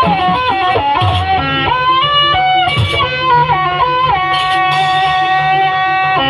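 Live jaranan music: a loud melody instrument playing long held notes that step up and down in pitch, over low drum strokes that come in near the start, around a second in and near three seconds.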